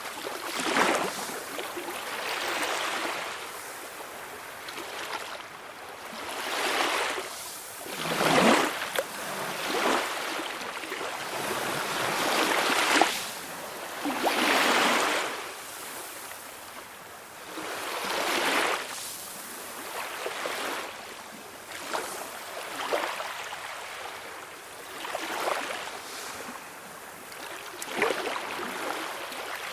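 Calm sea waves washing in and breaking, a hiss that swells and ebbs every two to three seconds, with the biggest breaks about a third and halfway through.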